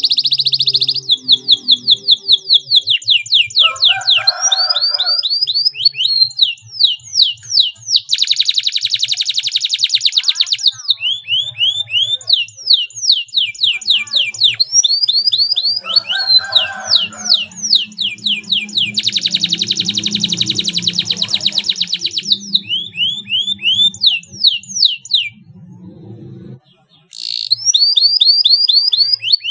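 Domestic canary singing a long, loud song of quick repeated down-slurred whistles. Twice, about 8 and 19 seconds in, the song breaks into a long, very fast tight roll, and it pauses briefly near the end before resuming.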